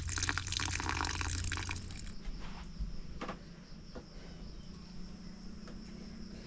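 Water poured from a plastic pitcher onto potted seedlings, trickling and splashing onto the soil for about two seconds. It then drops away to a quieter background with a few faint clicks.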